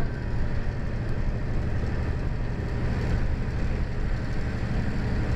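Passenger train running along the track, heard from inside the carriage: a steady low rumble of engine and wheels.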